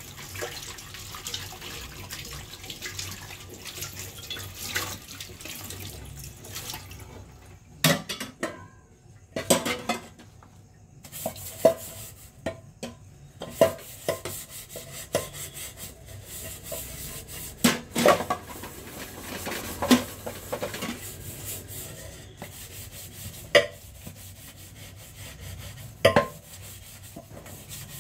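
Tap water running over a metal idli plate as it is rinsed, then stainless steel pots and bowls clanking against each other in a sink while being washed and rubbed. Sharp metal knocks come every one to three seconds after the first several seconds.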